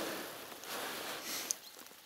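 Dry grass and leaf litter rustling as a shed antler is picked up out of it, fading off, with one sharp click about one and a half seconds in.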